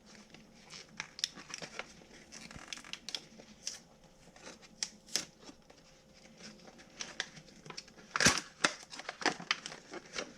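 Plastic retail packaging being handled and opened: irregular crinkling and tearing, with a louder burst of crinkles about eight seconds in.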